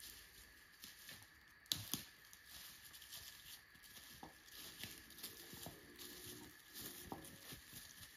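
Faint, irregular rustling and crackling of dry leaves and twigs, with two sharper snaps a little under two seconds in.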